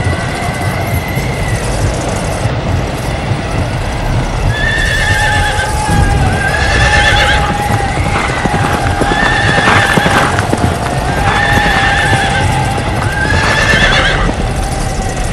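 Horses neighing again and again, about every two seconds from a few seconds in, over a dense rumble of galloping hooves and commotion.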